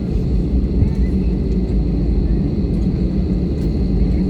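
Airbus A320 cabin noise just after landing: a steady low rumble of the jet engines and the rolling airframe, with a faint steady high whine.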